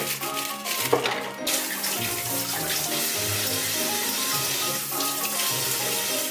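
Kitchen tap running into a stainless steel sink, water splashing over a cucumber as it is rinsed, steady from about a second and a half in. A single knock comes just before, about a second in.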